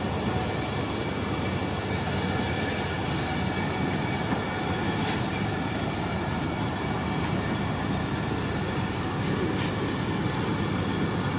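Pakistan Railways passenger coaches rolling past, a steady rumble of wheels on the rails, with three brief sharp high-pitched sounds about five, seven and nine and a half seconds in.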